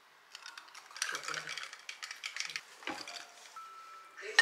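Ice cubes clinking and rattling in a glass of iced americano as it is lifted and drunk, followed by knocks of tableware on the table, the loudest one right at the end.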